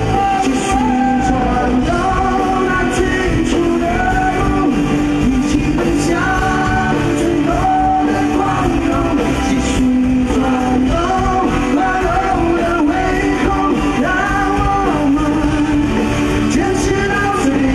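Live rock band playing: male lead vocals singing a melody over electric and acoustic guitars, bass and drums, loud and steady.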